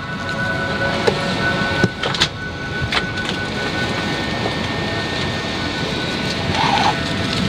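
Steady cabin noise aboard an Airbus A380, with a faint high tone running through it and a few sharp knocks in the first three seconds.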